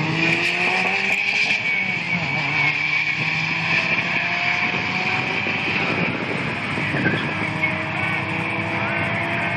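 Drag-racing cars at full throttle down the strip, one of them a turbocharged Nissan KA24DE-T four-cylinder, the engine note climbing in long sweeps and dropping back between them as they run up through the gears.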